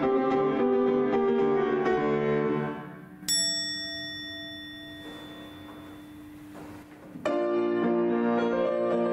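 Steinway grand piano playing a pop melody that trails off about three seconds in. A single bell-like chime then rings out and slowly fades, and the piano comes back in suddenly about seven seconds in.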